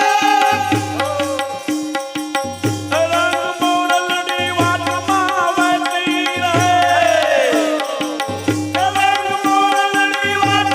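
Instrumental passage of a Gujarati devotional folk song. A held, sliding melody plays over a tabla rhythm, with a deep bass beat about every two seconds and a long falling pitch glide about seven seconds in.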